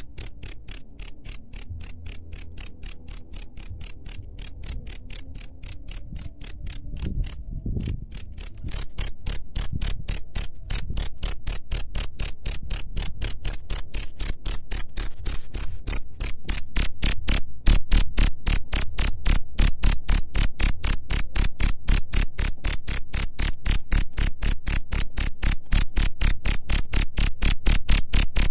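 Cricket chirping: a loud, high-pitched chirp repeated in rapid, evenly spaced pulses, dropping out briefly about eight seconds in.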